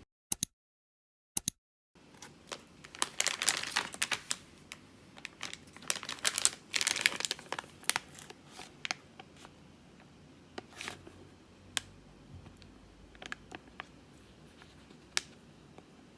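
Crinkling and tearing of a cough-drop package being handled and opened, in dense clusters of sharp crackles between about three and eight seconds in, then scattered single clicks and crackles.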